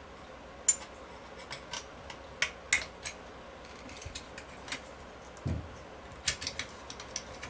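Scattered light metallic clicks and taps, about a dozen, as the trigger, safety and lower tang of a Marlin lever-action rifle are worked and lined up in the receiver, with a soft thump about five and a half seconds in.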